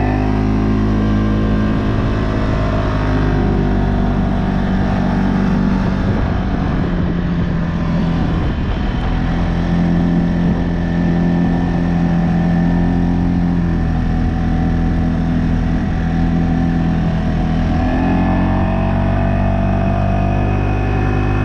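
CFMoto CForce 600 ATV's single-cylinder engine running under load in deep snow. Its engine speed rises and falls several times as the rider works the throttle.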